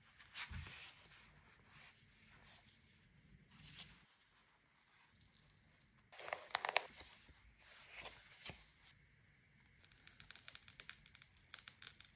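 Paper stickers and scrapbooking material paper rustling and crinkling as they are handled. A little after six seconds in comes a louder tearing sound as a sticker is peeled from its backing with tweezers, and near the end a fast run of crackles.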